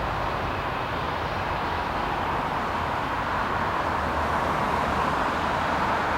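Airliner jet engines heard as a steady rushing noise, swelling slightly near the end.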